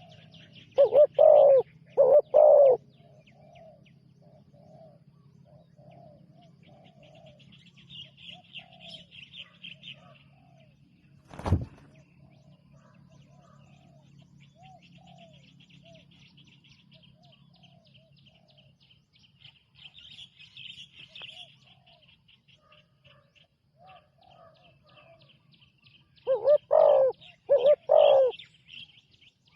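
Spotted doves cooing. A loud nearby dove calls twice near the start and three times near the end, with softer coos from another dove in between, over steady high-pitched chirping. A single sharp click comes about a third of the way in.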